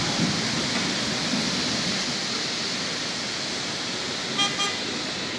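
Steady hiss of heavy rain on a wet city street, mixed with passing traffic. A vehicle horn beeps twice, briefly, about four and a half seconds in.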